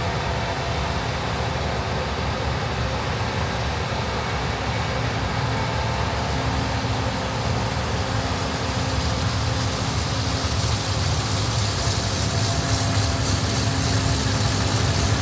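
Gleaner R65 combine harvester running steadily in a wheat field: an even engine-and-machinery drone with constant low tones. It grows a little louder and hissier over the last few seconds.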